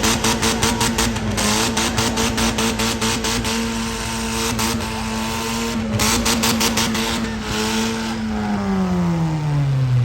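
Four-cylinder demolition derby car engine revving hard and held at high revs, then dropping off near the end. Rapid sharp crackles come through the first half of the sound.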